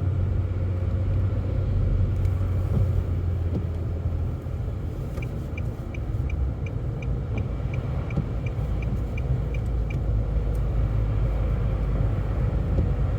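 Car cabin road noise: a steady low rumble of engine and tyres. From about five seconds in, the turn signal ticks evenly, about three ticks a second, for some five seconds before stopping.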